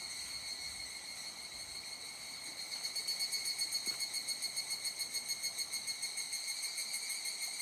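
Insect song outdoors: a steady, high-pitched buzzing call that swells about three seconds in into a fast, even pulsing of about five or six beats a second.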